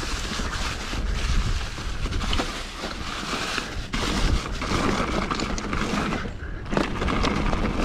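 Mountain bike riding down a rough dirt trail: a steady rush of wind and tyre noise with a continual clatter of the bike over the ground.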